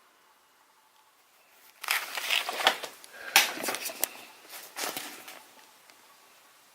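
Rustling and crunching of dry material, a run of sharp crackles starting about two seconds in and dying away after about three seconds.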